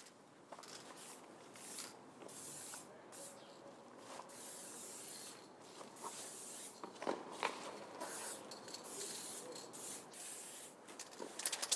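Aerosol spray-paint can hissing in a series of short bursts, each lasting about a second, as letters are sprayed onto a plastered wall.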